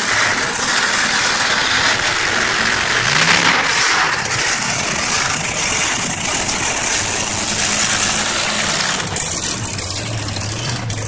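Monster truck engine running loud as the truck moves, revving with a brief rise in pitch about three seconds in, then settling to a steadier, lower note near the end.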